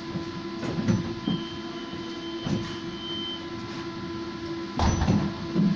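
Interior of a Vario LF2 plus tram standing at a stop: the steady hum of its onboard equipment, a single high warning beep held for about two seconds, typical of the door-closing signal, and a heavy thump near the end as the doors shut.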